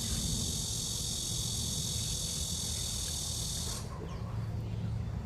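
Insect chorus, a steady high-pitched buzz, cuts off suddenly about four seconds in, over a continuous low rumble.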